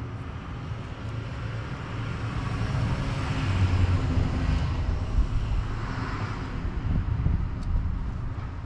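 A passing vehicle: a broad rushing noise with a low rumble that swells to a peak around the middle and then fades away.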